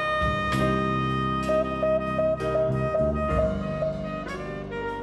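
Live jazz band with a saxophone in front: a long held note lasts about four seconds over shifting chords and light drum hits, then the line moves on near the end.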